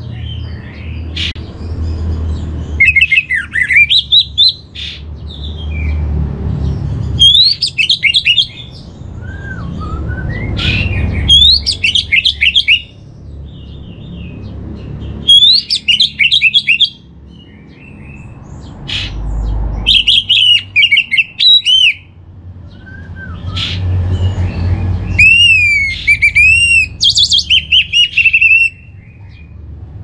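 Orange-headed thrush singing in repeated loud phrases of rapid, slurred whistled notes, each phrase one to three seconds long and coming every four to five seconds, over a low background rumble.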